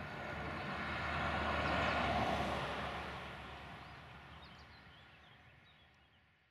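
A vehicle passing by: a rush of noise that swells for about two seconds and then fades steadily away, with a few faint bird chirps near the end.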